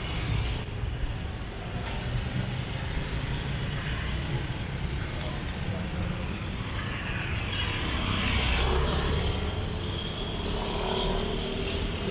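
Road traffic noise: cars running close by with a steady low rumble. The noise grows a little louder about eight seconds in as a vehicle goes past.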